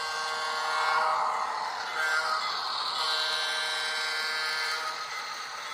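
HO-scale EMD SW7 model locomotive running at half throttle with a train of freight cars: its ESU LokSound 5 decoder plays a diesel engine sound through a small on-board speaker, over the rolling noise of the cars on the track, which swells about a second in and again mid-way as the train passes.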